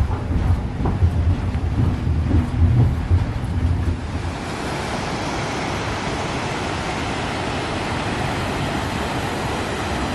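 A low rumble with a few knocks for about four seconds, then a steady wash of ocean surf.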